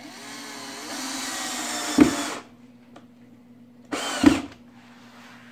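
Cordless drill driving wood screws into a wooden frame. The motor whines for about two seconds, rising in pitch and getting louder as the screw goes in, and ends in a sharp knock. A second, shorter run about four seconds in also ends in a knock.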